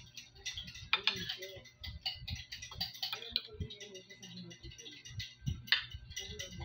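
Metal fork and spoon clinking and scraping against a ceramic dinner plate while eating, with two sharp clinks, one about a second in and one near the end.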